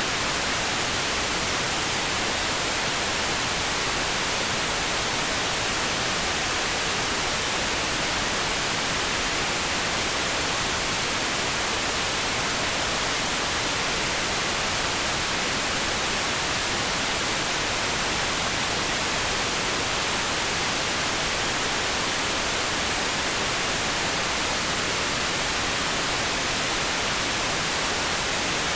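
Steady generated pink noise: an even, unchanging hiss with no change in level.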